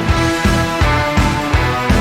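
Background music with a steady, driving beat: outro music.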